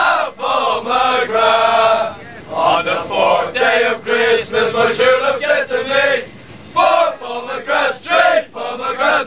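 A crowd of male football fans chanting a song together inside a tram car, with a short break about six seconds in before they pick up again.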